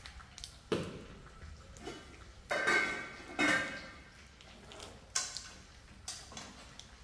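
Kitchenware clattering: scattered knocks, with two louder, ringing clatters near the middle.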